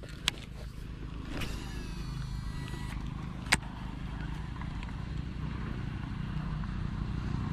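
Baitcasting reel during a cast: the spool whirs as line pays out, its pitch falling as it slows, then a sharp click as the reel is engaged. A steady low rumble runs underneath.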